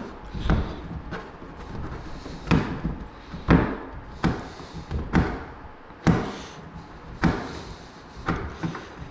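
Knocks and thuds on particleboard cabinet panels during flat-pack assembly, about a dozen sharp hits spaced irregularly about once a second.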